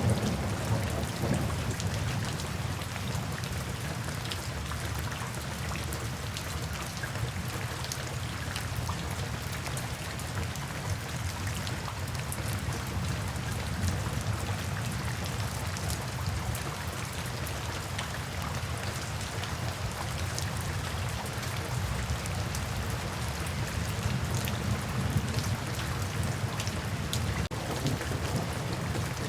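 Steady rain falling, with scattered individual drops striking close by over a continuous low rumble that is a little stronger at the start.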